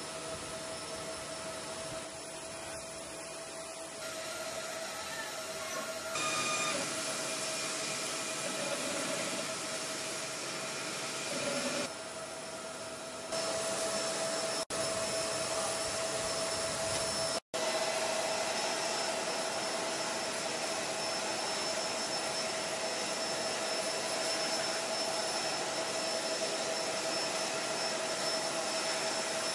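Aircraft turbine running steadily: a continuous rushing hiss with a steady whine. The level shifts abruptly a few times, with a brief dropout about two-thirds through.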